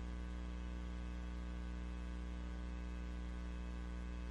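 Steady electrical mains hum from the microphone and sound system, with a stack of overtones and no change throughout.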